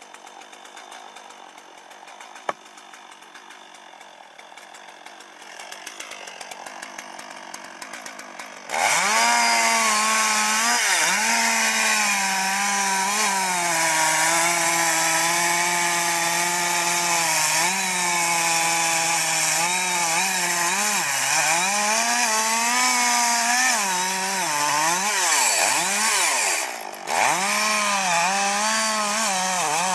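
A chainsaw idles faintly, then about nine seconds in it is throttled up and runs loud, its pitch repeatedly dipping and recovering as the chain bogs under load cutting into the tree. Near the end the throttle drops off briefly before it revs again.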